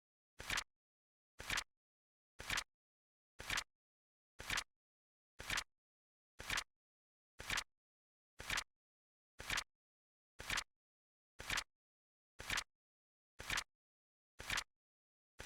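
Flip-clock sound effect: the flap of a flip clock clacking over, a short two-step click about once a second, with dead silence between.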